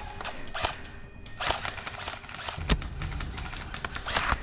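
Footsteps and rustling through a dry forest floor of needles and twigs, with irregular sharp cracks and knocks as the player moves, under quiet background music.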